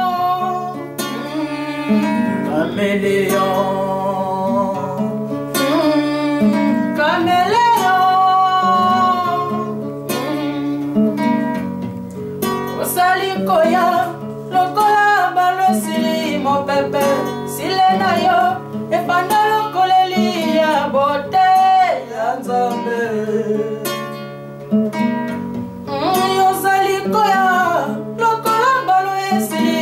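Nylon-string classical guitar played with plucked notes and a repeating bass line, while a man sings a melody over it.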